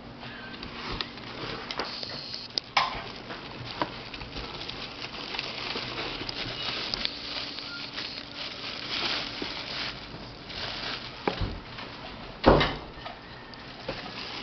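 Scattered clicks, taps and rustling of hands working on a desktop PC and its parts, with one louder knock near the end.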